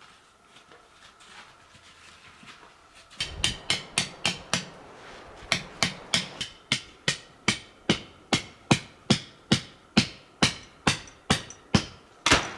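Tent stake being hammered in with repeated sharp strikes: a quick run of five, a short pause, then an even series of about two to three blows a second, the loudest one near the end.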